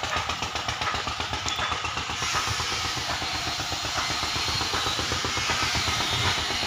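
An engine running steadily, with a fast, even chugging beat.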